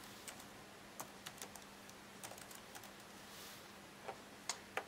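Faint, irregular keystrokes on a computer keyboard as a short line of text is typed, with a pause of about a second near the three-second mark.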